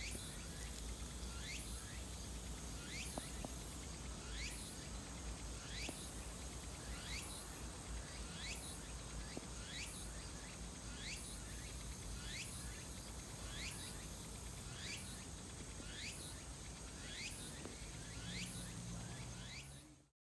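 Outdoor insect ambience: a steady high hiss with a short rising call repeating about once a second, over a low rumble. It cuts off suddenly near the end.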